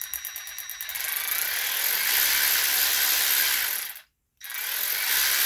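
Draper Storm Force 10.8V cordless 3/8in ratchet run free with no load, its variable-speed trigger eased in: the head starts with separate clicks that quicken over the first second or two into a steady high-speed whir. It stops about four seconds in and starts again half a second later.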